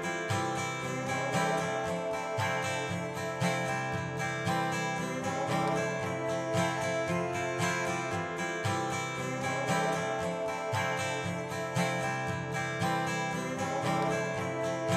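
Background music: an acoustic guitar strumming a steady rhythm.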